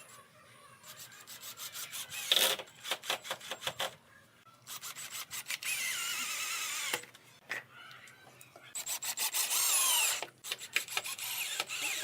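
Power drill working wood in two bursts of about two seconds each, its whine wavering under load and dropping in pitch as the second burst ends. Before them comes a quick run of sharp clicks.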